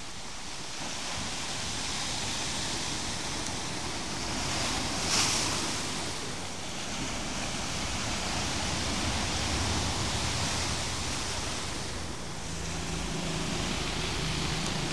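Sea surf breaking on a rocky shore: waves crashing and foam washing around the rocks in a continuous rush that swells and eases, with a brief louder surge about five seconds in.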